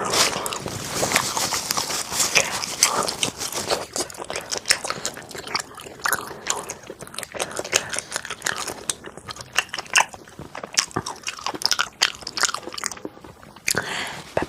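A person biting and chewing crunchy food, with many irregular, crisp crunches.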